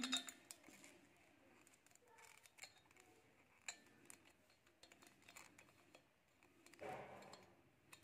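Near silence, with a few faint light clicks as multimeter test probes are placed on the compressor's terminals and metal body. No continuity beep sounds.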